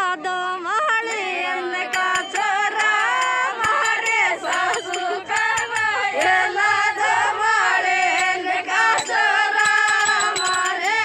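Several women singing a Meena uchata folk song together, unaccompanied, their voices overlapping and wavering. Scattered sharp clicks such as hand claps run through it.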